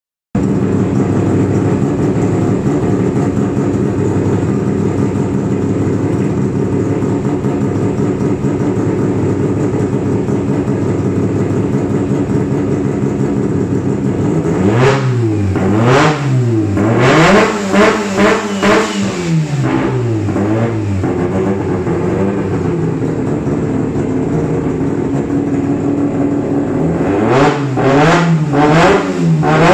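Turbocharged Mazda engine in a Nissan Champ 1400 bakkie idling steadily. About halfway through it is blipped up and down in a quick series of revs. It settles back to idle, then gets a few more quick revs near the end.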